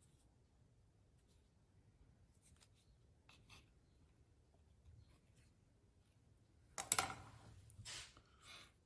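Hands rubbing and pressing a soft clay slab over a plaster mold: faint rubbing and light ticks, then a sudden, louder rustling scrape about seven seconds in and two shorter ones just after.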